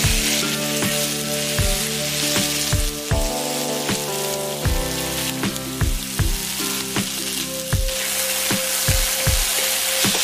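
Thin-sliced marinated beef sizzling hard as it sears in a very hot wok. Background music with a steady beat plays under it.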